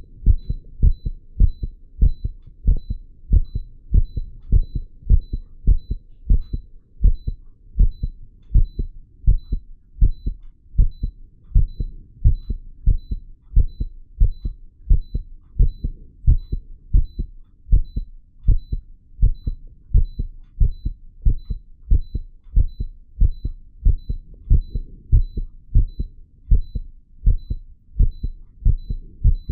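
A man's heart beating fast and steadily, heard close up through a stethoscope on the chest: a regular run of deep thumps, roughly two a second, its rate deliberately raised. A 3-lead ECG monitor gives a short, faint high beep in step with each beat.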